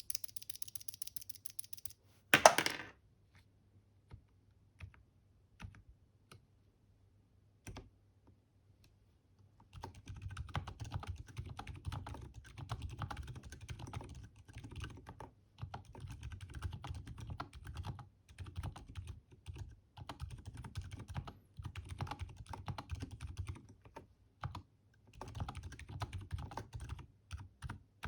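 Typing on a custom mechanical keyboard with silent switches (Boba U4 silent tactiles and lubed Gateron Ink V2 Silent Black linears), giving soft, muted keystrokes. A single loud thump about two and a half seconds in and a few scattered key presses come first, then steady, continuous typing starts about ten seconds in.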